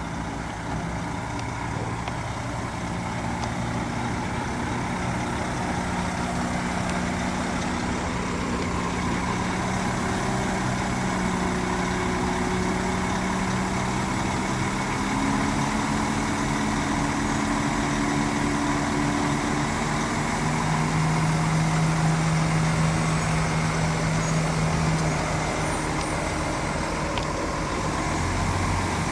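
Heavy diesel engine of earthmoving machinery running steadily, its pitch shifting up and down several times as the engine speed changes under load, a little louder about two-thirds of the way through.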